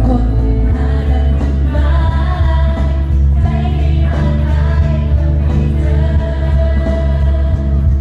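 A choir of young voices singing a Thai pop song with a female lead vocalist over amplified instrumental accompaniment with a heavy bass. The bass grows heavier about a second in.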